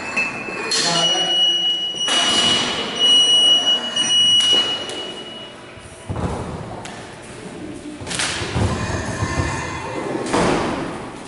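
A high electronic beep held for about three seconds, ending about four seconds in, then thuds and knocking in a large gym with voices around, as an athlete swings on gymnastic rings.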